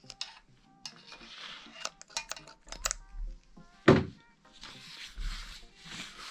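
Small metal clinks and taps from handling the three-leg cylinder hone and engine block, with one louder knock about four seconds in, followed by soft rubbing as oil is worked onto the cylinder wall.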